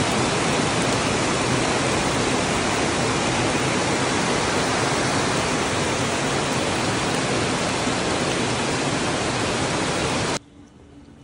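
Heavy rain pouring onto pavement, a loud steady hiss that cuts off suddenly about ten seconds in.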